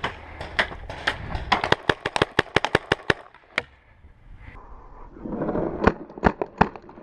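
Paintball markers firing: a quick volley of sharp pops at about six or seven a second for a couple of seconds, a single shot after a pause, then three more spaced shots near the end, with a brief rush of noise just before them.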